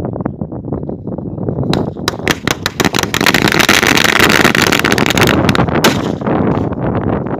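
A string of small firecrackers wrapped around a ball going off in a rapid crackle of bangs, starting about two seconds in and lasting about four seconds, densest in the middle, then stopping.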